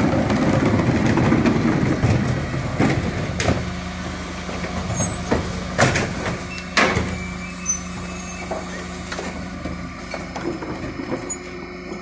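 DAF CF refuse truck with a Heil Powerlink body running its hydraulics, loud for the first few seconds, then a steady hum as the Terberg OmniDEL lifter raises and tips a plastic wheelie bin. The bin knocks sharply against the lifter and hopper several times during the tip.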